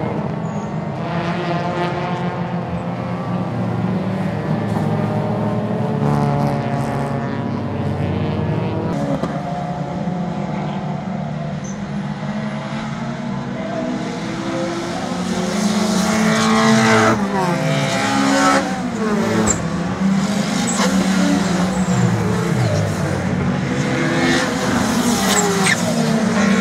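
Several race car engines running hard at once as a pack of cars laps the circuit, their pitch rising and falling with the revs. In the second half cars pass close, each engine note dropping as it goes by.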